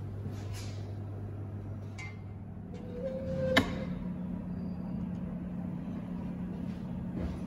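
A steady low hum, with a single sharp click about three and a half seconds in, after which the hum changes pitch.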